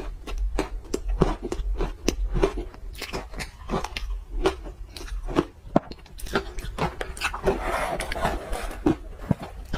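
Pink ice being bitten and chewed close to the microphone: a quick, irregular run of sharp cracks and crunches, with a denser stretch of grinding crunch about three quarters of the way through.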